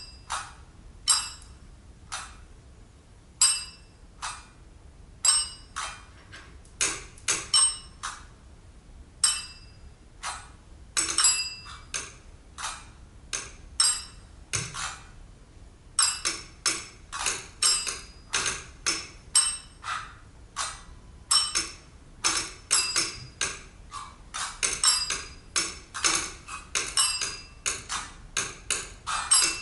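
Percussionists striking small objects on a tabletop: sharp, ringing clinks and taps in an irregular rhythm. They start sparse and grow denser about seven seconds in, then come in a rapid stream from about sixteen seconds in.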